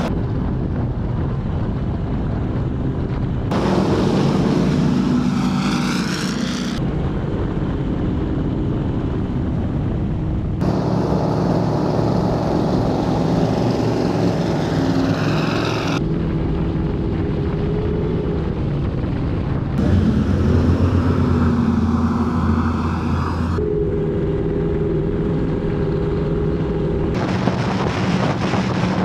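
High-performance offshore powerboat engines running hard at speed, with wind buffeting the microphone and water rushing past the hull. The engine note and noise change abruptly every few seconds, and some stretches hold a gliding pitch as the sound shifts.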